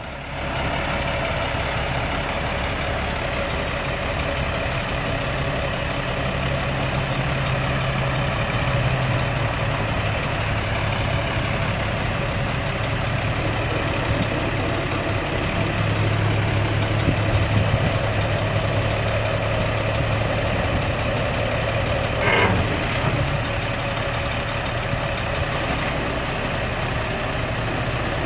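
Cummins L10 six-cylinder diesel engine of a dump truck idling steadily, its low note shifting slightly a couple of times. A brief sharp sound cuts in about 22 seconds in.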